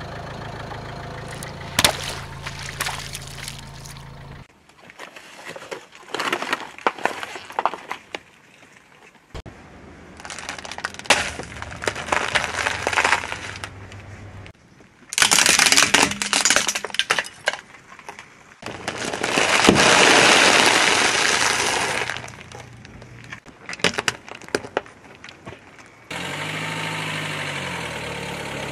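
Car tyre slowly rolling over and crushing objects one after another, with the car's engine idling between crushes. Water balloons give a sharp pop near the start. Later come bursts of crackling and snapping, the loudest a long crunch about twenty seconds in, as dry spaghetti and its plastic packet are crushed.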